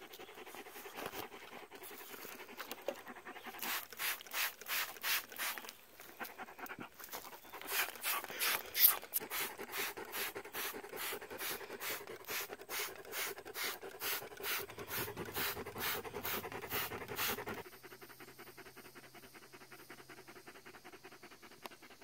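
Retired racing greyhound panting hard after a hike, an even rhythm of about two to three pants a second that cuts off suddenly a few seconds before the end.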